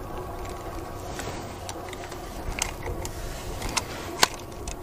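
Handling noise from unhooking a snakehead: a few scattered small clicks and taps, the loudest near the end, as hands and pliers work at the fish's mouth to free a frog lure.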